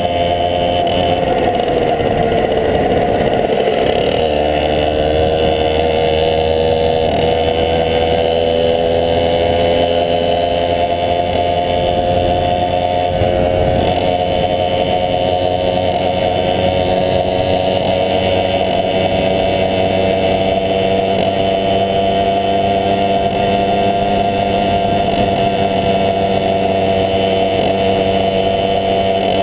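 1971 Tunturi Maxi moped's small two-stroke engine running under way. Its pitch dips a few seconds in, then climbs slowly and evenly.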